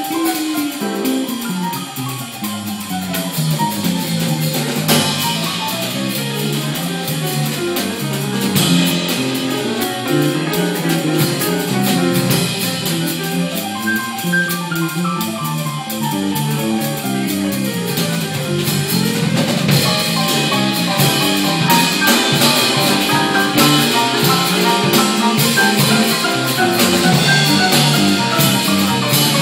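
Live small-combo jazz. An electric bass guitar plays a prominent line of stepping notes that rise and fall, with piano chords above and a drum kit's cymbals ticking steadily in time.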